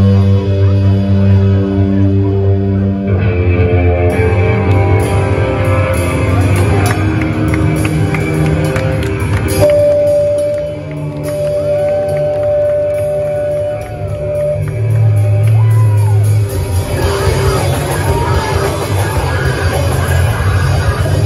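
Live rock band playing loud in a small room: electric guitar chords over drums, with a single note held for a few seconds about halfway through, then the full band coming in denser and heavier near the end.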